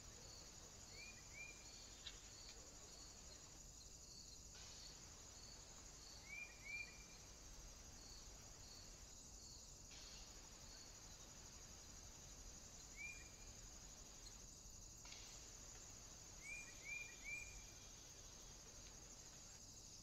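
Faint, steady high-pitched buzzing of insects such as crickets or cicadas in woodland, pulsing about once a second at first. Short bird chirps come twice in pairs, once singly, and three in quick succession near the end. The sound drops out briefly a few times where the camera's clips are joined.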